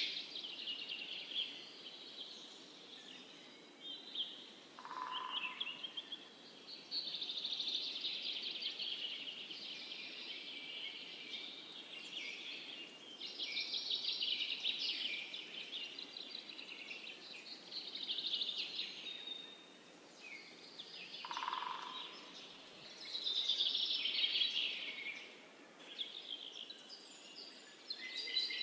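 Songbird singing in a run of high, warbling phrases a few seconds long with short gaps between them. Twice, about five seconds in and again near twenty-one seconds, a short lower note sounds, over a faint steady hiss of outdoor background.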